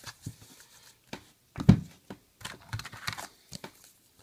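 Trading cards and a foil card pack handled on a table: scattered soft taps and rustles, with one louder knock about one and a half seconds in.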